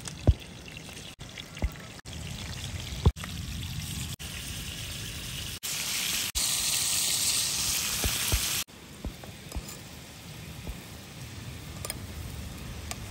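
Fish pieces sizzling in hot oil in a frying pan over a wood fire, with scattered sharp pops. The sizzle grows louder and brighter for about two seconds past the middle, then drops back suddenly.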